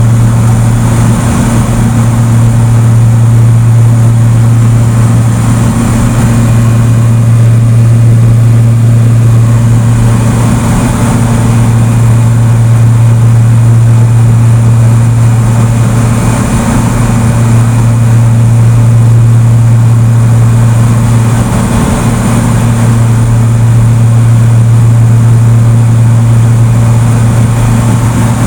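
Airplane engine and propeller drone, loud and steady, with a strong low hum.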